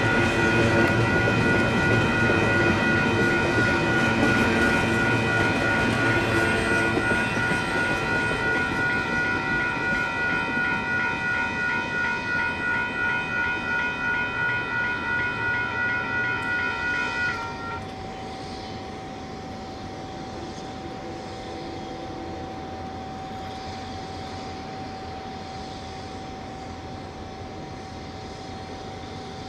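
Two WCH electronic railroad-crossing bells ring in a pulsing, steady-pitched tone while the rumble of a passing freight train fades away. About two-thirds of the way through, the bells cut off suddenly, which marks the crossing gates coming back up. A faint steady hum remains after that.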